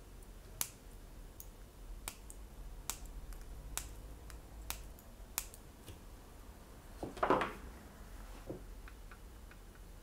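Flush side cutters snipping the extra analog pins off a DVI connector: about seven sharp single clicks at irregular intervals over the first five and a half seconds. A louder handling rustle follows about seven seconds in.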